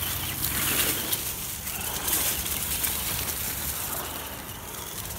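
ECX Amp MT electric RC monster truck driving over grass and dry fallen leaves: a steady noisy hiss with scattered clicks and crackles.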